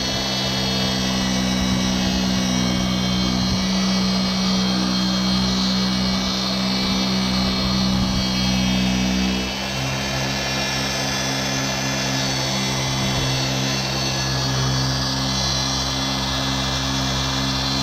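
Small 3-inch electric polisher running steadily with a pad and cutting compound on a plastic headlight lens. It makes a steady whine that drops to a lower pitch about halfway through.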